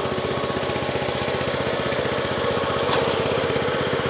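Small petrol engine of a mini crawler carrier idling steadily with an even, fast firing beat. A single short click sounds about three seconds in.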